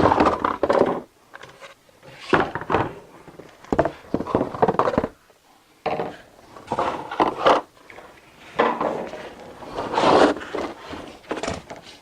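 Cardboard and plastic packing scraping and rustling in irregular bursts as vacuum cleaner parts are pulled out of their box, with a few dull knocks as pieces are handled and set down.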